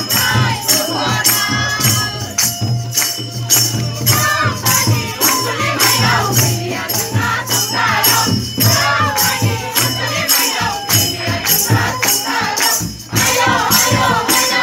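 Group singing over a steady, fast jingling percussion beat: Bodo Bathou devotional music.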